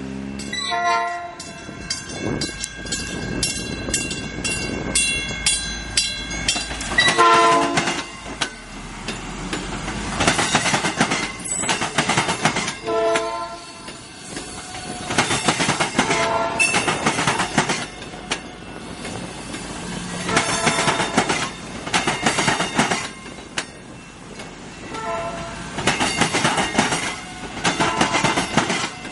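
South Shore Line electric commuter train passing over a street grade crossing, its wheels clattering loudly in pairs, truck after truck, as the cars roll by. Crossing bells ring over the first several seconds, and several short horn blasts sound during the passage.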